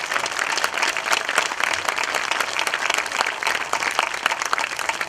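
Audience applauding steadily, a dense patter of many hands clapping, greeting a band member as he is introduced.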